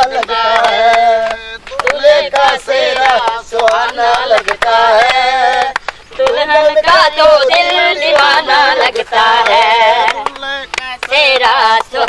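A woman singing a wavering, unaccompanied film-style song melody, with pauses between phrases, while hands clap along.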